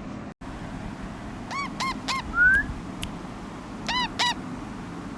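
Pet parrot calling in short, arching calls: three in quick succession about a second and a half in, then a louder rising whistle, and two more calls about four seconds in. A single sharp click comes near the middle.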